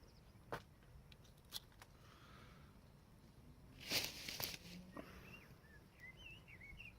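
Handling of a fishing magnet and the scrap stuck to it: a couple of sharp clicks, then a brief louder scrape about four seconds in. Birds chirp near the end.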